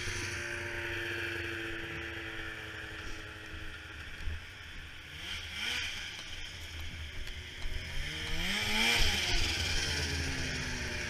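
Snowmobile engine running, revved up and back down twice, about five seconds in and again near nine seconds.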